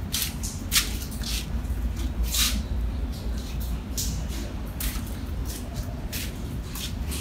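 Irregular rustles and soft knocks from a handheld phone being moved around, over a steady low hum.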